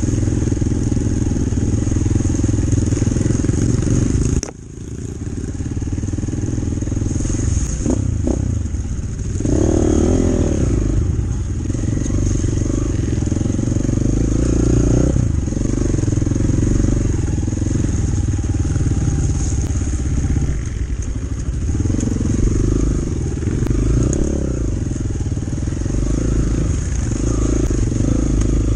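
Chinese enduro motorcycle engine running under way, its revs rising and falling as it is ridden. About four and a half seconds in the engine sound drops away sharply and then builds back up.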